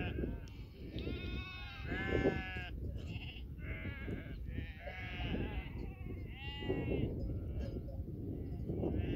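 A large flock of sheep bleating, with many overlapping calls one after another from different animals, over a steady low background noise.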